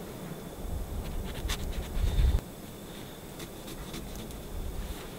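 Kitchen knife cutting into a mango on a wooden cutting board: faint scraping and a few light clicks. A low rumble runs underneath for the first two seconds or so and stops abruptly.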